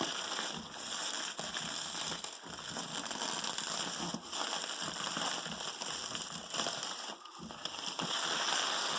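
Packaging wrap crackling and rustling as it is handled and pulled off a tightly wrapped parcel.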